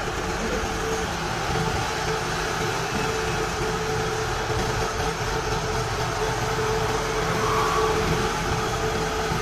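Kubota DC-93 combine harvester's diesel engine running steadily as the crawler machine climbs loading ramps onto a flatbed truck, with a steady whine held throughout.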